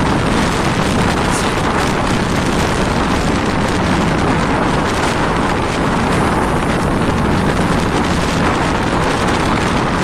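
Strong sea wind blowing across the microphone, a steady loud rush, mixed with the noise of a rough, whitecapped sea around the vessel.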